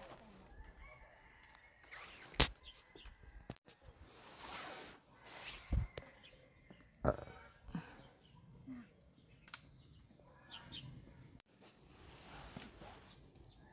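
Outdoor ambience: a steady high insect trill, with scattered rustling and a few sharp clicks, the loudest about two and a half seconds in.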